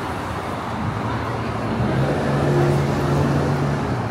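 Street traffic with a motor vehicle's engine humming close by: its low, steady note comes in about two seconds in, grows a little louder, and drops away near the end.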